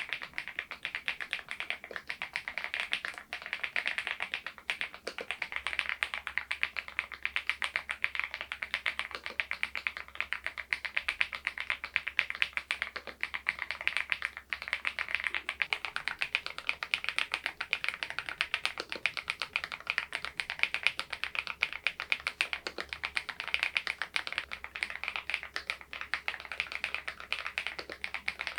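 Epomaker TH80 V2 PRO mechanical keyboard being typed on steadily, a fast continuous stream of keystroke clacks.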